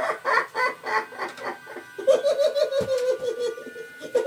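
Laughter from a clown animatronic's sound track: quick, choppy laughing, then from about two seconds a higher, fast-pulsing giggle. There is a single low thump near three seconds in.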